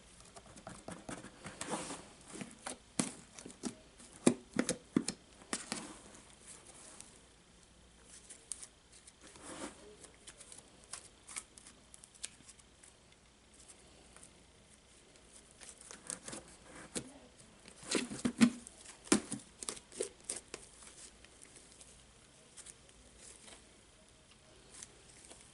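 Sticky slime being kneaded and stretched by hand as clay is worked into it: clusters of wet clicks and crackles, busiest early and again past the middle, with quieter spells between.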